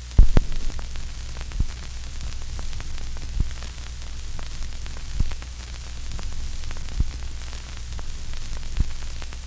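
Vinyl record surface noise: crackle and hiss over a low hum, with a louder pop recurring about every two seconds, loudest just after the start.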